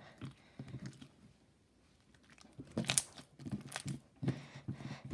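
Slime being handled: scattered sticky clicks and crackles, sparse at first, then a quick cluster about halfway through.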